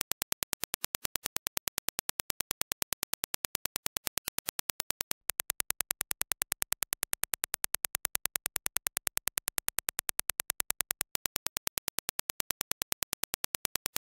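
Test-signal impulse clicks repeating evenly, about ten a second: first the reference Dirac impulse, then, from about five seconds in, the same impulse played back through the Sennheiser HD599 SE headphones and a little louder. Near the end it switches back to the reference impulse.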